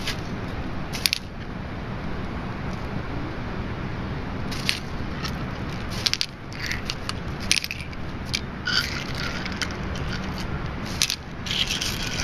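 Seashells set down one at a time on a stone slab with a few sharp clicks, and a plastic bag crinkling as they are taken out of it, over a steady low rumble.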